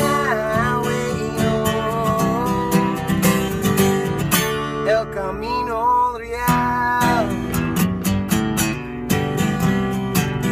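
Steel-string acoustic guitar strummed steadily, with a man singing two long, wavering 'oh-whoa' lines, one at the start and one around the middle; the guitar plays on alone near the end.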